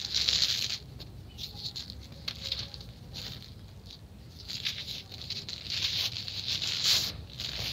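Dry sand-and-cement mix crumbled and rubbed between bare hands and let fall onto a woven plastic sheet: gritty, crunchy crumbling and pattering in a string of short bursts, fainter in the middle and busier in the second half.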